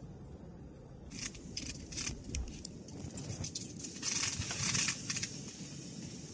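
Firewood crackling and popping in a small wood-burning tent stove, irregular sharp cracks that settle into a steady hiss of the fire.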